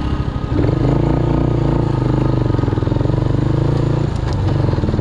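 Motorcycle engine running steadily while riding, heard close from the handlebars. Music cuts off about half a second in, leaving the engine, which dips briefly about four seconds in.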